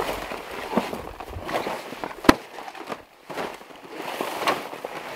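Heavy rooftop-tent cover rustling and crinkling as it is folded in quarters and set down on dry grass. One sharp click a little over two seconds in is the loudest sound.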